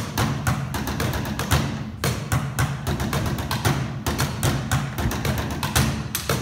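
Ensemble of drummers beating a fast, driving rhythm with drumsticks on Victorinox Spectra hard-shell suitcases: sharp clicky strikes over hollow low thuds from the cases.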